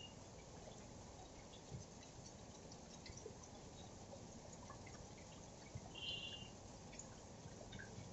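Heavy monsoon rain falling on a street: a faint, steady hiss with scattered drips and patters. A brief high-pitched tone sounds about six seconds in.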